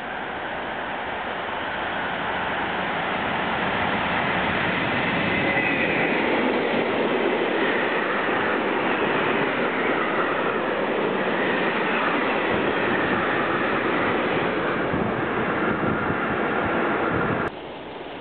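Freight train of tank wagons passing close by: the rumble and rush of its wheels on the rails builds as it approaches over the first few seconds, then holds steady as the wagons go past. It cuts off suddenly shortly before the end.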